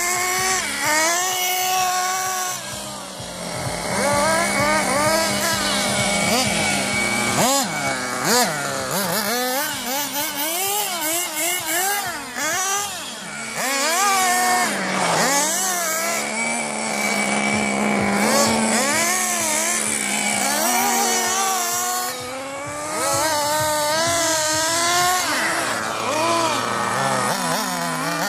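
Radio-controlled buggy's motor revving up and down over and over as it accelerates, slows and turns, its pitch rising and falling in quick sweeps.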